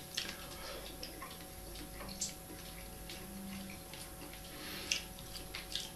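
Quiet eating: a fork clicking lightly a few times against a baking dish as a piece of chicken breast is cut and eaten, over a faint steady hum.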